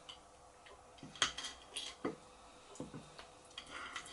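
A knife making scattered light clicks and taps against a chopping surface while boiled octopus is cut up and cleaned.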